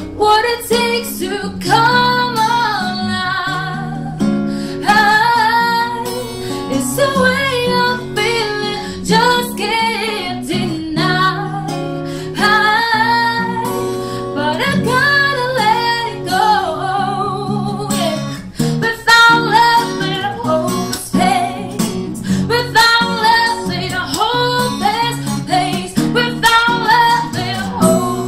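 A woman singing over a strummed acoustic guitar.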